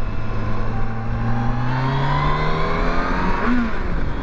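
Yamaha FJR 1300 inline-four motorcycle engine accelerating, its note rising steadily in pitch, then dropping about three and a half seconds in. Wind noise rushes over the mic throughout.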